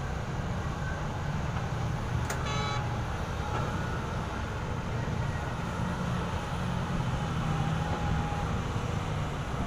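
Diesel engines of heavy mining equipment running steadily with a low rumble. About two seconds in, a short horn toot sounds once.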